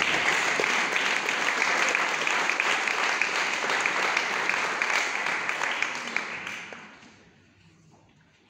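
Audience applauding, a dense patter of many hands clapping that dies away about seven seconds in, leaving a quiet room.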